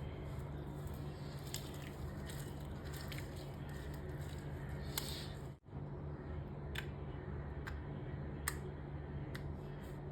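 Homemade glue slime being squeezed and stretched by hand: soft squishing with scattered sharp little pops and clicks, over a steady low hum. The sound drops out for a moment a little past halfway.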